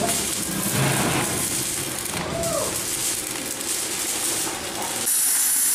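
Stick (arc) welding on steel plate, a steady crackle and sizzle. About five seconds in it switches abruptly to the steady high hiss of an angle grinder grinding steel.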